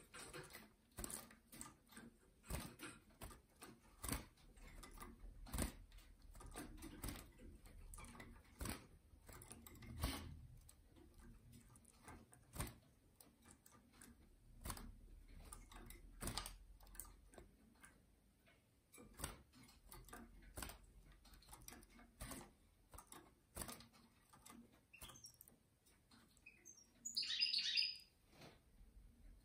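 Female European goldfinch in a small wire cage: faint, irregular light clicks and taps as it hops between perches and bars, with one brief chirping call near the end.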